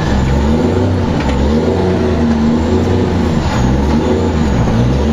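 Straight-piped Cummins diesel of an ERF E10 290 tipper truck pulling uphill with no silencer, heard loud from inside the cab, its pitch rising and falling slightly as it works.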